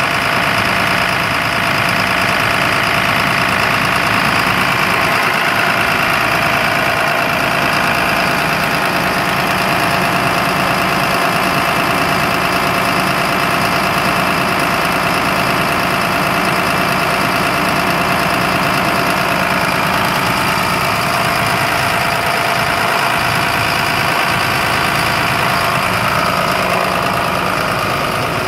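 A Mercedes MBE 900 diesel engine in a 2007 rear-engine school bus idling steadily just after a cold start in deep frost, running smooth. It is heard close up at the open rear engine compartment.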